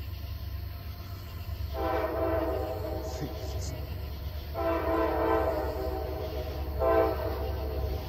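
Multi-chime air horn of an approaching Norfolk Southern diesel locomotive sounding two long blasts and then a short one, over a steady low rumble.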